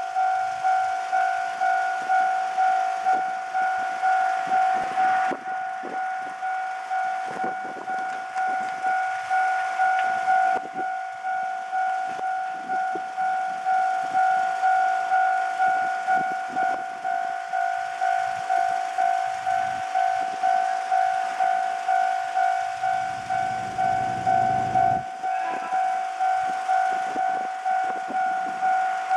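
Japanese railway level crossing warning bell ringing, an electronic two-tone clang repeating evenly about twice a second: the crossing is closed for an approaching or departing train. A low rumble joins for a couple of seconds about 23 seconds in.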